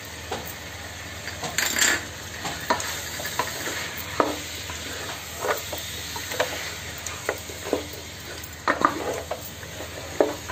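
Chicken pieces frying in oil with ground onion and ginger in a nonstick pot, sizzling steadily. A wooden spoon stirs and turns them, knocking and scraping against the pot every second or so.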